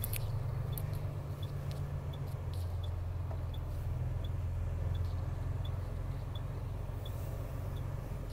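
Truck engine running, heard from inside the cab as a steady low rumble while the loaded truck pulls into a yard, with the dashboard turn-signal indicator ticking about every 0.6 s.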